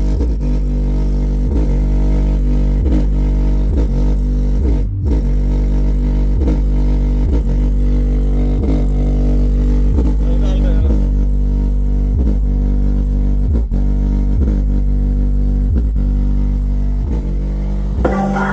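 Bass-heavy DJ music played loud through a bare Ahuja N18-SW1800 1800-watt neodymium speaker driver, with no cabinet. A steady beat of about one and a half beats a second over deep bass, with little treble.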